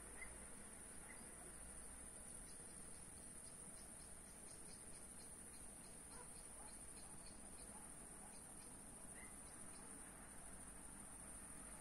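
Faint, steady, high-pitched trilling of crickets, with a few faint short chirps scattered through it.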